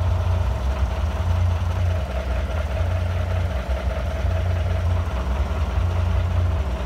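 Large truck's engine idling: a steady low rumble.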